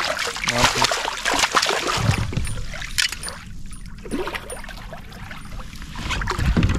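Water splashing and dribbling beside a fishing kayak as a hooked bass is brought in. The splashing is densest in the first two seconds, with dull low rumbles about two seconds in and near the end.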